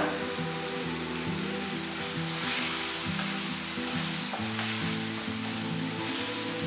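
Chicken pieces in masala sizzling in a hot nonstick frying pan while being stirred with a spatula.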